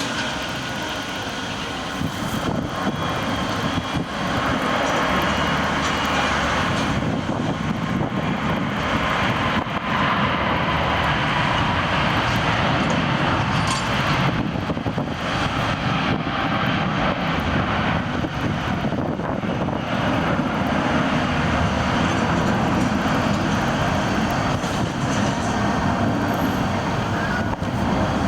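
Jet engine noise from a Boeing 777-300ER's GE90-115B turbofans, a steady dense rush that grows louder about four seconds in and then holds.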